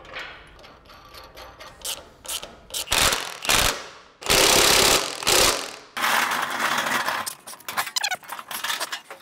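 Heavy steel lift parts being worked into place: sharp metal knocks, then loud scraping and grinding of steel on steel, the loudest about halfway through, followed by quicker ratchet-like clicking near the end.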